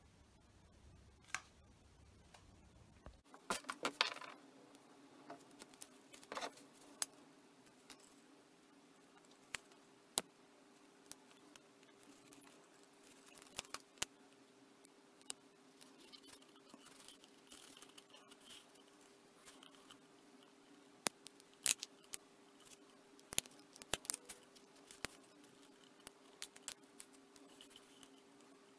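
Scattered small clicks, taps and rustles of hands handling a strip of vinyl wrap and a paper template on a cutting mat. A faint steady hum starts about four seconds in.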